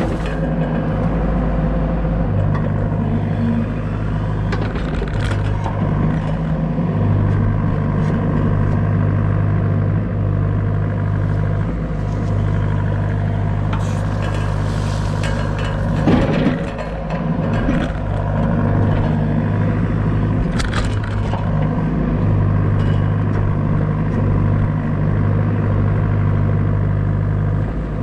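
Doosan DX63 mini excavator's diesel engine running steadily as the machine works, its tone dipping and returning as the hydraulic load changes. A few knocks and clanks come through, the loudest about 16 seconds in.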